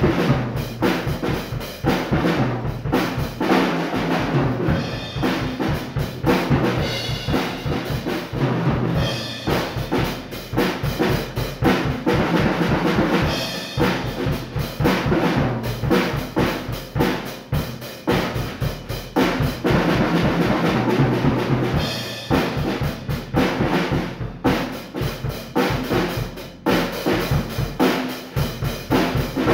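Rebel acoustic drum kit played freestyle: a dense, continuous run of bass drum, snare and tom strokes with crashing cymbals and drum fills, no pauses.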